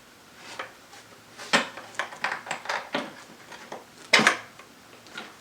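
Skateboard truck and its hardware being taken off a deck with a skate tool: scattered clinks and knocks, a handful between two and three seconds in and the loudest about four seconds in.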